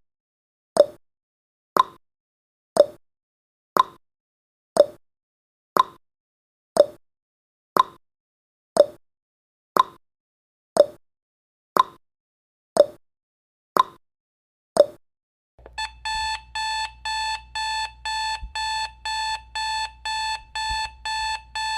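Countdown timer sound effect: a short tick once a second, then about 15 seconds in a fast alarm-clock beeping starts, about four beeps a second, as the countdown reaches zero.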